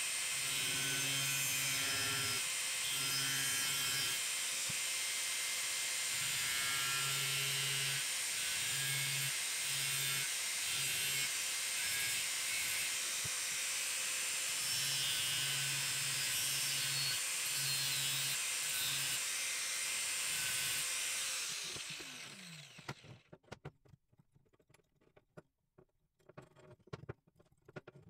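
Angle grinder with a thin cutting disc cutting through a steel bracket: a steady, loud whine and hiss for about twenty seconds, with a lower hum that comes and goes as the disc is loaded. The grinder then cuts off and spins down with a falling whine, followed by scattered light clicks of the metal pieces being handled.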